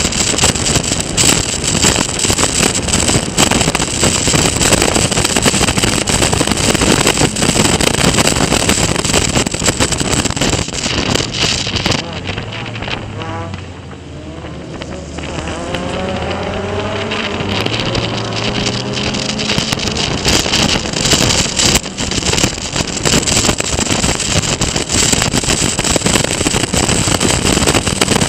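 Onboard sound of a Caterham Seven race car's four-cylinder engine pulling hard, with strong wind buffeting on the open car. About halfway through, the engine drops off throttle into a tight hairpin and the sound dips. It then rises again in pitch as the car accelerates out.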